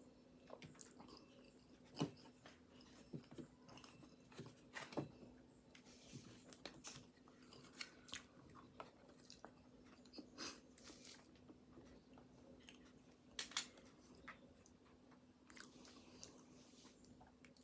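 A person chewing and biting flaky pastry close to the microphone: quiet, irregular crunchy clicks and mouth sounds, with a faint steady hum underneath.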